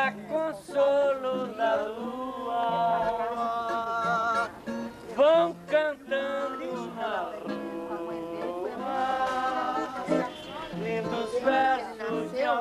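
A man singing a Brazilian seresta song with held, bending notes, accompanied by an acoustic guitar whose bass notes step along beneath the voice.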